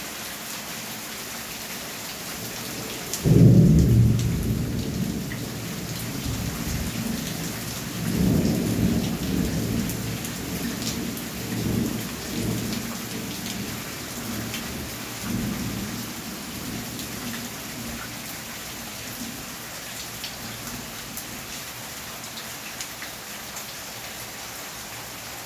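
Steady rain falling on a concrete garden path and gravel. About three seconds in, a sudden loud thunderclap breaks out, then rumbles on in rolling swells for over ten seconds before fading back under the rain.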